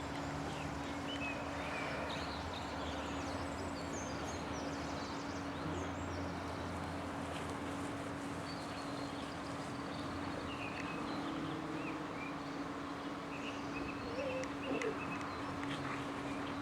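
Outdoor rural background: a steady low hum under an even noise haze, with scattered short, high chirps.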